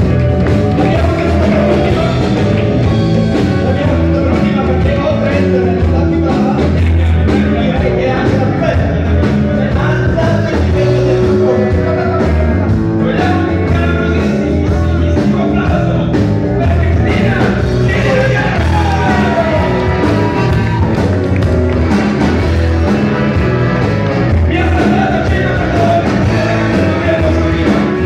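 Loud live blues band playing: bass guitar, drums and saxophone, with men singing into microphones.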